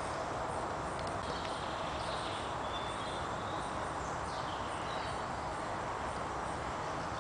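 Steady outdoor hiss with distant songbirds, giving short chirps and falling whistles every second or so.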